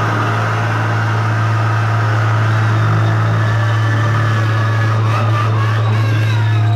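Live grindcore band letting distorted bass and guitar ring on one sustained note as a steady loud low drone, with a higher wavering ringing tone over it and no drumming.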